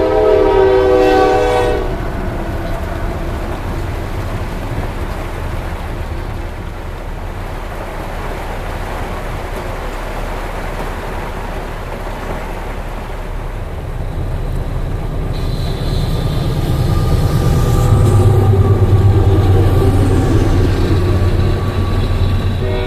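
Freight train's air horn sounding and cutting off about two seconds in, then the train rolling steadily through a grade crossing, a continuous rumble mixed with the hiss of heavy rain. From about halfway through a deeper rumble builds as another train passes close by, and it is loudest near the end.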